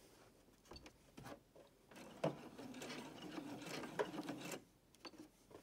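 Electric sewing machine stitching at low speed for about two and a half seconds, starting about two seconds in, after a few light clicks: a short backstitch to lock the end of a hem seam.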